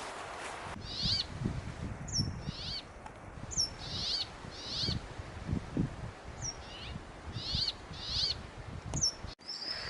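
A bird calling over and over, a dozen or so short, high, sweeping calls about one every half second to second, with soft low thuds underneath.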